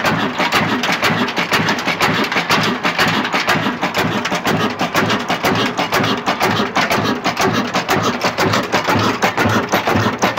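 Old stationary diesel engine running slowly, just after being throttled back, with an even, rapid beat of firing strokes.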